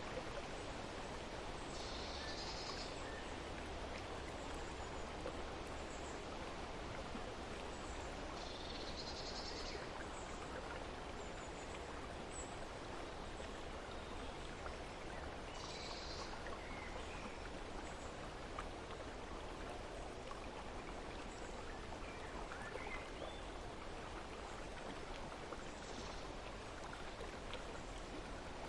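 Steady outdoor ambience of running water, with a few short, high bird chirps now and then.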